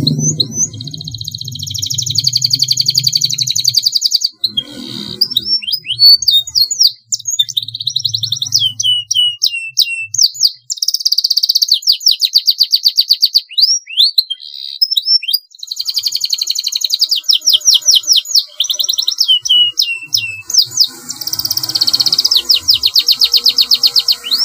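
Domestic canary singing a long, nearly unbroken song of rapid rolling trills and quick gliding whistled notes, with brief pauses between phrases.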